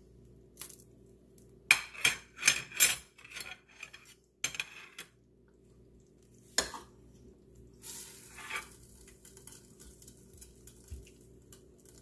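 A metal ladle and serving fork clink and scrape against a stainless steel cooker pot and a china platter as pot roast and potatoes are served. There is a quick run of loud clinks about two seconds in, then scattered quieter clinks, over a faint steady low hum.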